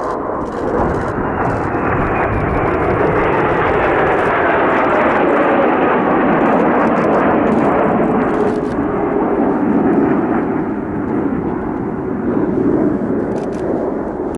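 Kawasaki T-4 jet of the Blue Impulse team flying past with loud, continuous jet noise. Through it runs a whine that slides steadily down in pitch as the jet goes by.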